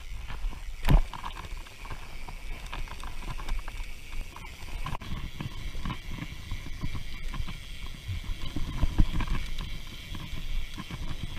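Mountain bike riding fast down a dirt trail: tyres crunching on gravel and the bike rattling over bumps, with a sharp knock about a second in and a low wind rumble on the mounted camera's microphone.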